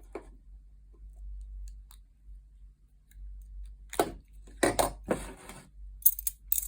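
A bunch of metal lock keys jangling and clinking as they are handled. The jangling starts about four seconds in, after a few faint clicks, and comes in several short bursts.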